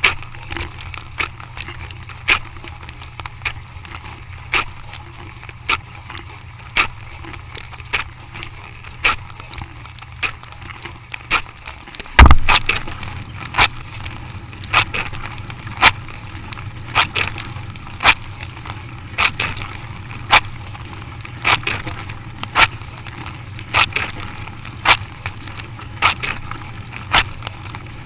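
A machine running with a steady low hum, and sharp clicks or knocks roughly once a second. There is a single heavy thump about twelve seconds in.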